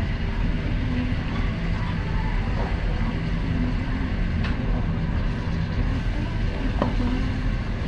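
Steady rumble of restaurant noise, with a faint murmur of voices in the background. A couple of light utensil clicks come about halfway through and again near the end.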